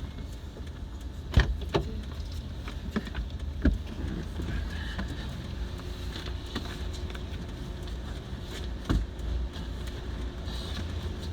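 A few sharp knocks and thumps as a large boxed TV is shifted into a car and a seat is moved up to make room, over a steady low rumble.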